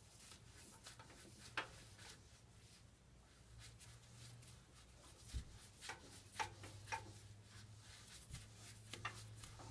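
Faint rubbing and light scraping as a foam brush works stain onto a turned mahogany table leg, with a few sharp clicks and one low knock about five seconds in. A low, steady hum runs underneath.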